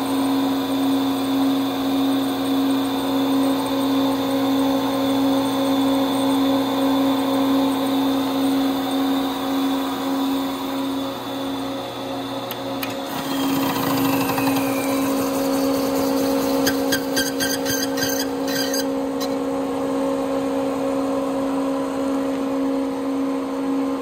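DEC RA81 hard disk drive running with a steady hum and whine. About 13 seconds in the motor is switched off: the whine stops and a falling whine follows as the drive spins down, then a run of rapid clicks a few seconds later, with a steady hum carrying on underneath. This is the spin-down on which the steel drive belt slips on the motor pulley, which the owner suspects is a faulty motor brake.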